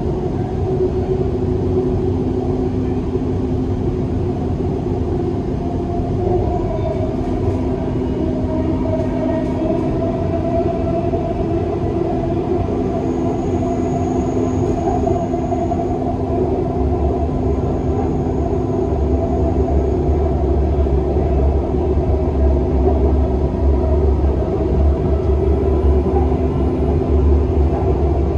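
Dubai Metro train running between stations, heard on board: a steady rumble of the wheels on the track, a steady hum and a whine that drifts in pitch. A heavier low rumble comes in a little past halfway.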